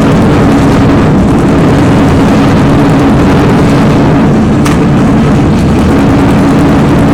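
Loud, steady vehicle rumble with a constant low droning hum, with no breaks or changes.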